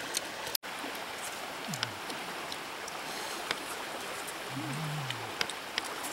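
Steady rush of river water, with scattered light clicks and a couple of short low-pitched glides, the longest about three-quarters of the way through.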